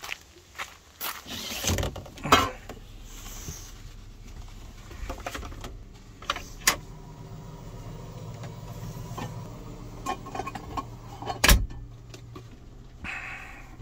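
Clicks, knocks and rattles of things being handled in a camper van, with a steady low motor hum for several seconds in the second half and one sharp knock near the end.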